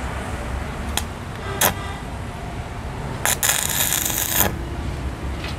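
Stick (arc) welding on a motorcycle's steel double stand: the electrode taps and scratches against the metal twice about a second in, then the arc catches around three seconds in and crackles for about a second as a nut is tack-welded on.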